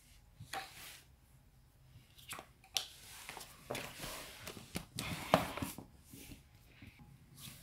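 Scattered handling noises: soft rustles of paper and light clicks and knocks as things are picked up and the phone is moved.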